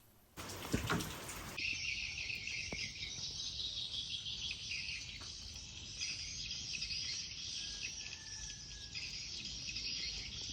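Steady high-pitched chirping chorus of insects and birds, coming in about a second and a half in after a short burst of noise.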